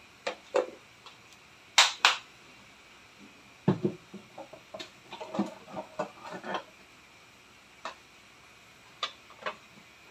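Scattered light clicks and knocks at the stove: two sharp clicks about two seconds in, a busier patch of small knocks in the middle, and two more clicks near the end.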